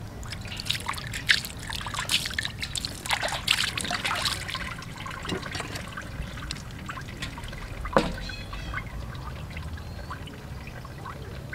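Water trickling and splashing while a fish is cleaned on a wooden board, with a dense run of sharp wet clicks over the first five seconds and a single louder knock about eight seconds in.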